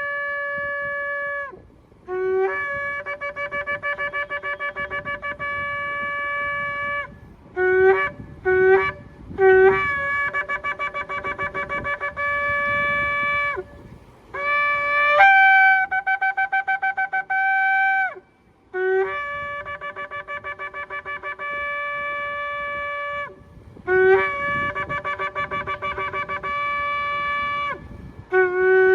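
Shofar being blown in a series of long blasts, each starting on a low note and jumping up to a higher one, several with a rapid flutter. About eight seconds in come three short blasts in quick succession.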